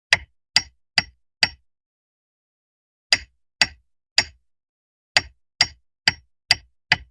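Cartoon sound effect of sharp knocks with a slight metallic ring, in three groups of four, three and five, about two a second within each group.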